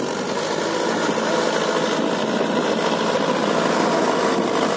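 Sonalika RX-55 tractor's 55 HP diesel engine running steadily under load while pulling a mouldboard plough through soil.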